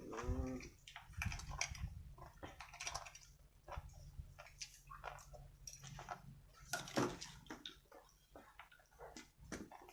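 A person eating close to the microphone: chewing and smacking, a run of short sharp clicks, with a brief voiced sound at the very start and a low steady hum behind.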